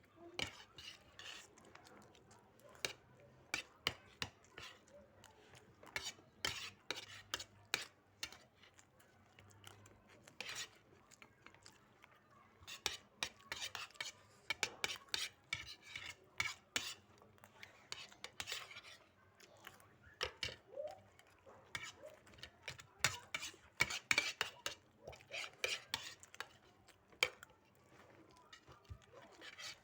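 Spoons scraping and clinking against plates of fried rice during fast eating: many short, irregular scrapes and clicks.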